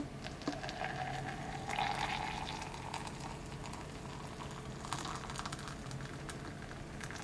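Hot water pouring from an electric kettle into a glass mug of ground coffee, the pitch of the filling rising a little over the first two seconds.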